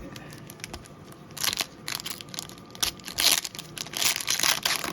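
Crinkling and rustling of trading-card packaging as cards are handled, in a run of short bursts starting about a second and a half in.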